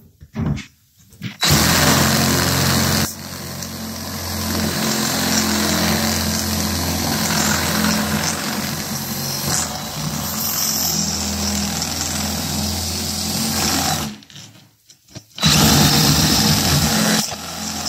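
Power drill running with a twist bit against the head of a steel rivet in a metal panel: one long run of about twelve seconds, a short stop, then a second shorter run near the end. The rivet is being difficult, spinning instead of coming right off.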